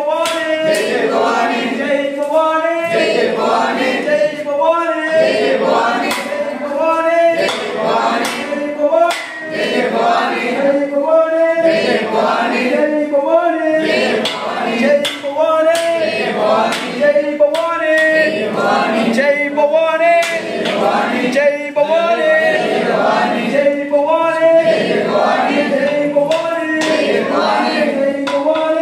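Male voices singing a devotional chant together in chorus, the same short sung phrase coming round again and again at a steady pace.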